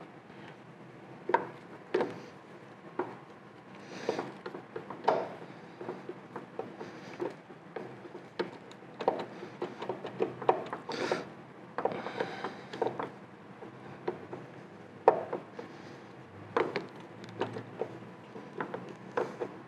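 Scattered light clicks, taps and rubbing of small metal parts being handled and worked into place by hand inside a lathe's gear-shifter housing, coming irregularly.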